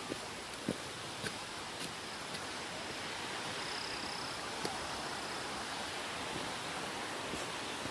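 Footsteps on a dirt and rock hiking trail, a short knock about every half second for the first couple of seconds and once more later, over a steady rushing hiss.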